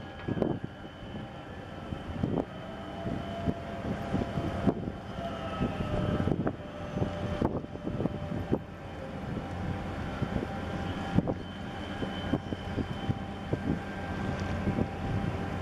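Low, steady marine engine drone with a faint whine, broken by frequent irregular thumps and splashes of water and wind.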